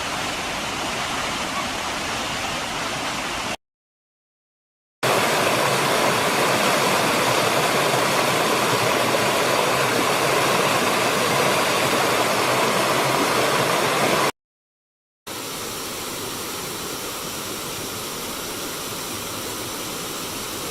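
Steady rushing of a waterfall, broken by two short gaps of dead silence, about three and a half seconds in and about fourteen seconds in. The middle stretch is the loudest, and the last is quieter.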